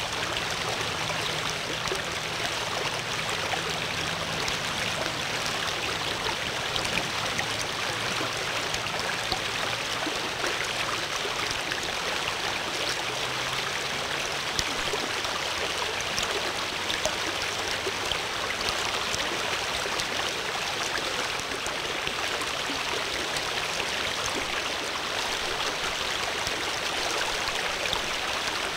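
Steady rushing of flowing stream water, an even hiss with no breaks or changes.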